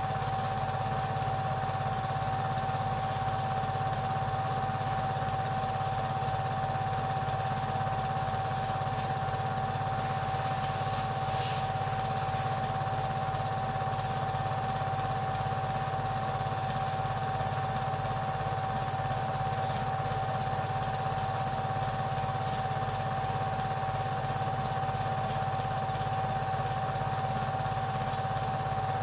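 Super 8 film projector running: a steady motor whir with a constant high tone and an even rapid flutter from the shutter and film transport.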